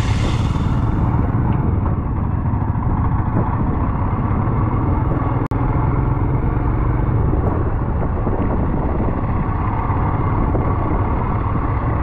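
Motorcycle riding along, a steady low rumble of engine and road noise, with a brief break in the sound about five and a half seconds in.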